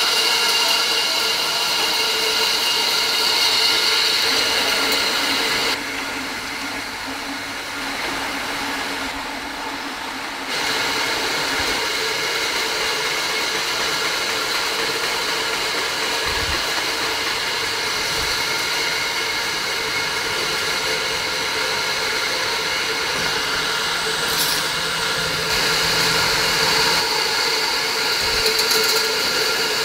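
Aerosol can conveyor line and surrounding factory machinery running steadily: a constant mechanical hum and hiss with several steady whining tones. It turns quieter for a few seconds about six seconds in, and a few low thumps come in the second half.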